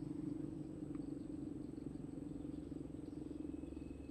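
A steady, low, rapidly pulsing animal trill that eases off slightly near the end, with a faint high steady whine coming in about three seconds in.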